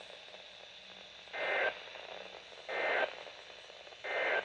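Emergency Alert System end-of-message data bursts over a weather radio broadcast: three short, buzzy digital bursts about a second and a half apart, over steady radio hiss. The bursts signal the end of the alert message.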